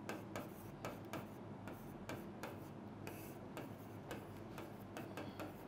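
Marker pen writing on a board: faint, irregular taps and short scratches of the tip as letters are drawn.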